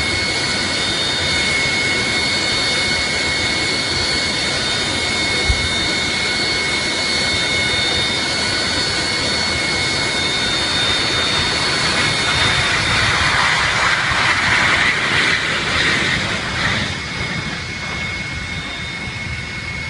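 Jet airliner's engines running: a steady loud noise with a high turbine whine held at several fixed pitches. It swells a little past the middle and eases toward the end. One short low thump comes about five and a half seconds in.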